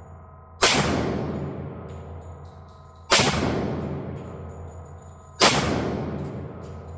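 Three 10mm pistol shots from a Tisas D10 1911 firing 180-grain Underwood ammunition, in slow fire about two and a half seconds apart, each sharp crack followed by a long fading echo.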